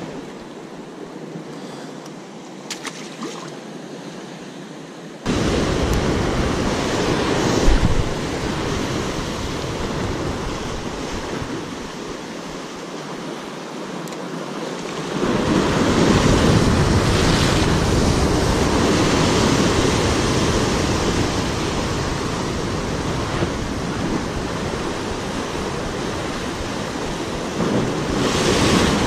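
Sea surf breaking and washing over rocks, with wind buffeting the microphone. The sound is quieter for about the first five seconds, then jumps abruptly louder, and swells again midway with heavier low rumble.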